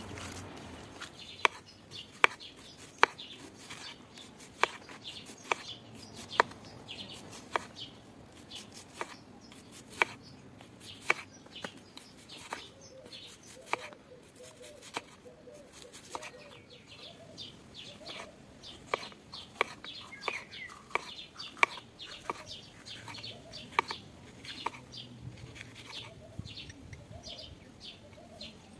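Kitchen knife tapping sharply on a wooden cutting board, one tap about every second, as an onion and green peppers are sliced into rings. Birds chirp and call in the background throughout.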